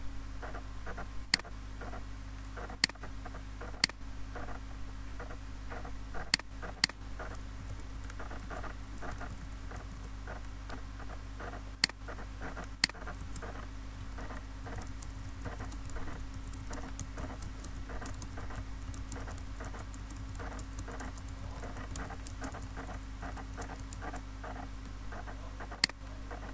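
Computer keyboard typing in a quick run of small ticks through the middle of the stretch, with about eight separate, louder mouse clicks scattered around it, over a steady low hum.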